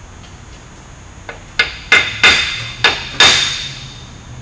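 Hammer tapping a steel driveshaft tube: five sharp metallic strikes in under two seconds, each ringing briefly, the last ringing longest. The taps are bending the shaft true to bring its run-out, read on a dial indicator, down to a few thousandths.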